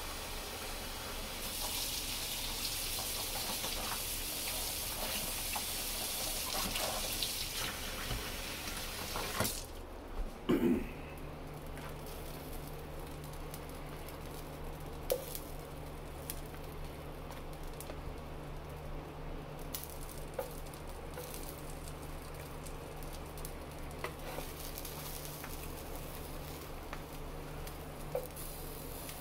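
A kitchen faucet runs into the sink with a steady hiss for about nine seconds, then stops with a couple of knocks. After that comes the quieter sizzle of a buffalo chicken cheesesteak sandwich frying on an electric griddle, with a steady low hum and occasional light clicks of a spatula against the plate.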